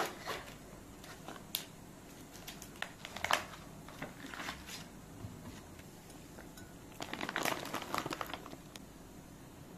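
Handling noises: scattered crinkling and rustling with a few sharp clicks, then a longer spell of rustling about seven seconds in.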